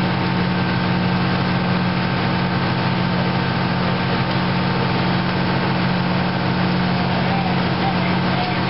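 Fire engine's engine running steadily, a constant low hum that does not change.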